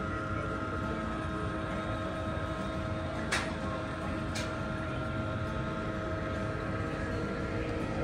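Steady hum of machinery running, holding several fixed tones, with two light clicks about three and a half and four and a half seconds in.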